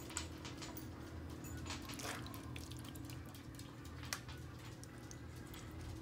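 A spatula scooping a wet chili-and-hot-dog meat mixture and dropping it into a glass baking dish: faint wet plops and a few light clicks, over a low steady hum.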